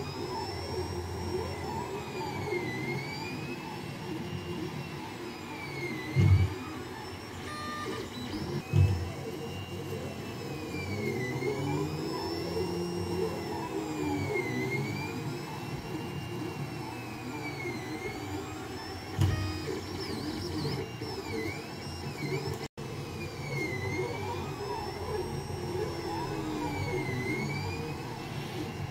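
Ender 3 Pro 3D printer running a print: its stepper motors whine in pitch that rises and falls over and over as the head traces round paths, over a steady fan whir. Three short thumps cut in, at about six, nine and nineteen seconds.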